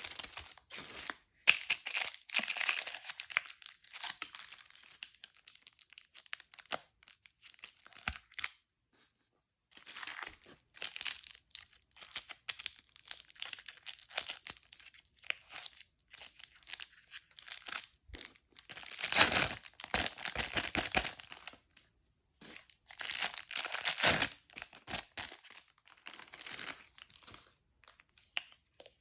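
Candy packaging being unwrapped by hand: plastic wrappers crinkling and tearing in several bursts of a few seconds each, with short quiet pauses between them.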